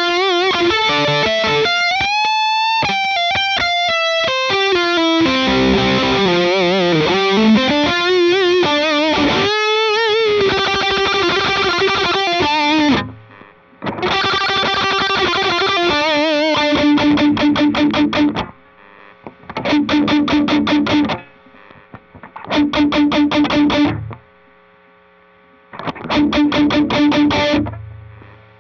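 Electric guitar played through a Fulltone OCD-style overdrive, with a distorted tone. It starts with held notes and bends with vibrato, then about halfway through changes to short phrases of fast, evenly repeated chord strokes broken by brief pauses.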